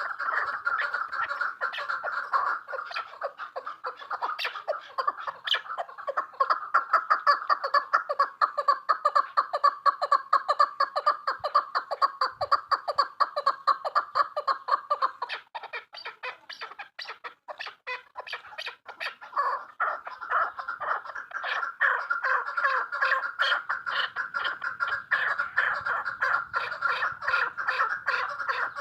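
Chukar partridge calling in a long, rapid run of repeated clucking notes. The calls fade for a few seconds about halfway through, then pick up again.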